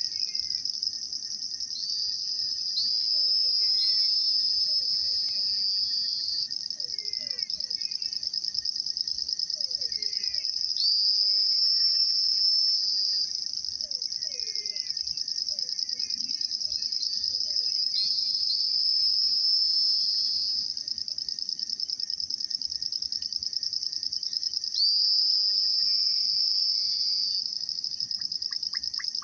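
Dense evening insect chorus: a steady high-pitched trill, with louder overlapping calls swelling in and fading four times, about every seven seconds, and scattered short chirps lower down.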